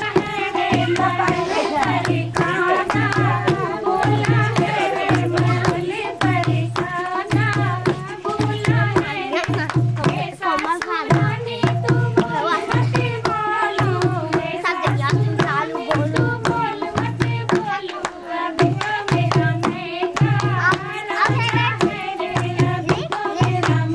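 Indian folk dance song: singing over a hand drum that keeps a steady deep beat, roughly one stroke a second.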